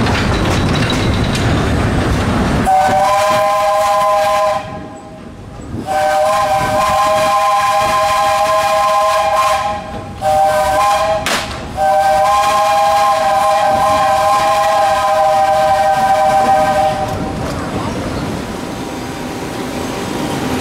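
The steam whistle of the narrow-gauge 1922 Vulcan 2-4-0 tank locomotive "Myron H." sounding a chord in four blasts, long, long, short, long: the grade-crossing signal. Rail and coach rumble is heard before and after the blasts.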